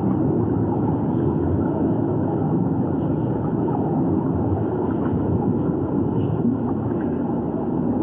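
Steady low underwater rumble of moving water, picked up by a submerged camera's microphone; even throughout with no distinct events.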